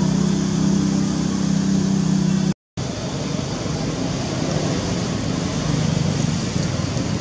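Steady, loud noise with a low, even droning hum, like a running motor, that is strongest in the first two and a half seconds. The sound drops out completely for a moment at a cut and comes back as a rougher steady noise.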